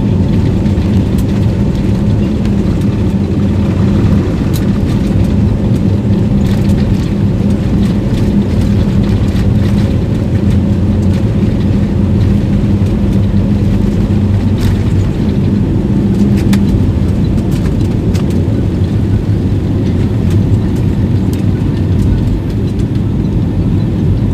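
Airbus A320 turbofan engines running at takeoff power: a steady, loud low drone with a constant hum.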